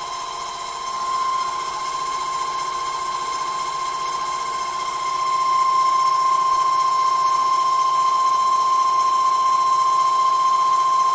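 Small CNC lathe running a finishing pass on a turned part, giving a steady high-pitched whine that grows louder about five seconds in.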